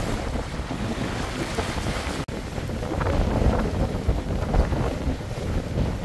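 Wind buffeting the microphone aboard a sailing catamaran under way, with sea and water noise beneath it; the low rumble gusts louder in the second half. There is a momentary break about two seconds in.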